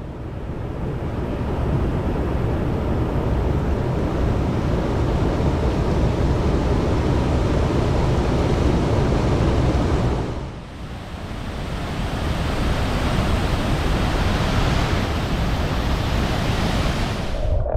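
Flowing water of McDonald Creek, a mountain creek, rushing steadily. The sound dips briefly about ten seconds in and swells back.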